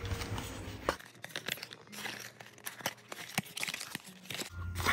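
A small cardboard gift box being opened by hand: card and paper rustling and crinkling, with many small irregular clicks and scrapes.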